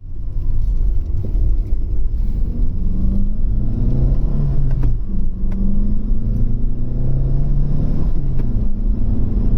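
Vauxhall Cavalier's four-cylinder petrol engine with an SRi head, accelerating on the road with a gear change about five seconds in and another near the end, its note climbing in each gear. It pulls cleanly now that its misfire has been cured.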